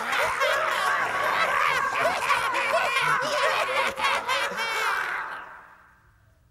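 Many voices laughing and shrieking together at once, fading out about five seconds in.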